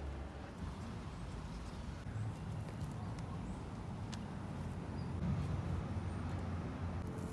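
Low, uneven rumbling with a few faint clicks of scissors snipping an eggplant stem.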